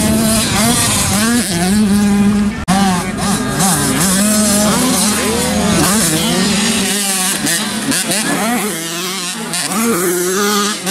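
Several 85cc two-stroke motocross bikes racing, their engines revving up and down as they take the corners. The sound drops out sharply for a moment about two and a half seconds in.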